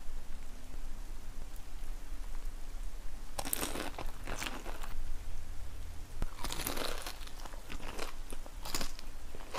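Close-miked crunching bites into crispy fried chicken fingers, with chewing between. The loud crunches come in clusters starting about three and a half seconds in and again around six and a half seconds, with shorter ones near the end.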